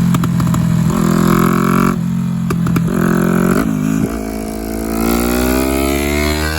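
Yamaha R3 motorcycle's 321 cc parallel-twin engine revving in short steps, then rising steadily in pitch from about four seconds in as it accelerates.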